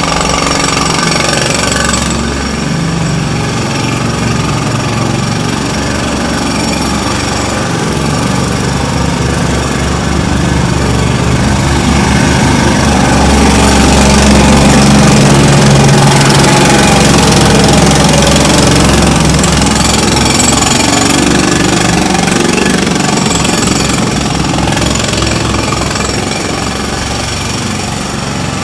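Jackhammer breaking up a road surface, hammering continuously; it grows louder to a peak about halfway through, then fades as the listener walks past it.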